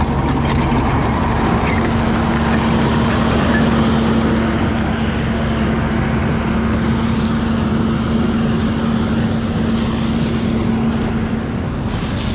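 Tracked skid steer's diesel engine running steadily with a constant hum as the machine is driven, with scattered metallic rattles in the second half.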